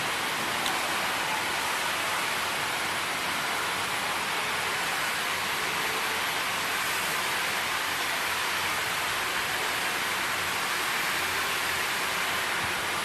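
Steady, even hiss with no clear knocks or rhythm.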